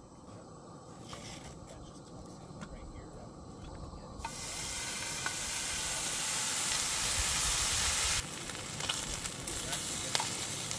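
Bacon strips sizzling in a frying pan on a camp gas stove. The sizzle comes in suddenly about four seconds in as the bacon goes into the hot pan, and drops to a lower, steady sizzle a few seconds before the end.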